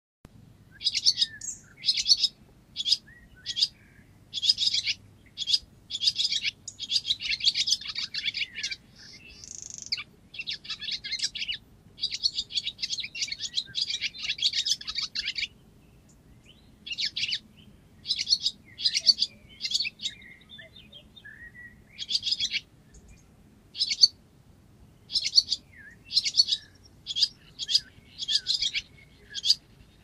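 Barn swallow song: long runs of rapid, high twittering and chattering notes in quick bursts, with a short pause about halfway through.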